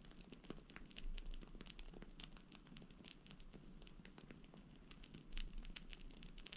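Bonfire candle burning with faint, irregular crackling: many small sharp pops, a little louder about a second in and again near the end.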